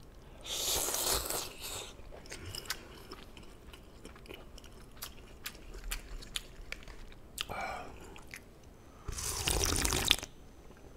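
A person eating jjamppong noodle soup close to the microphone: a slurp of noodles about half a second in, then chewing with small wet clicks. A shorter slurp comes later, and near the end a louder, longer slurp of broth drunk straight from the bowl.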